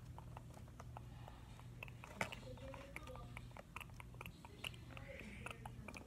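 Faint, irregular clicks and taps of a small cardboard box being handled and turned over, over a low steady hum.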